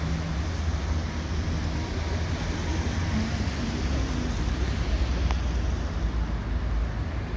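Steady low rumble of city traffic with wind noise on the microphone.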